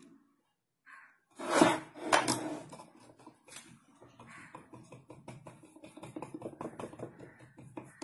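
A metal fork pricking rolled mathri dough and tapping on a wooden board, docking it so it won't puff up when fried. Two louder clinks come about a second and a half in, then a rapid run of light taps.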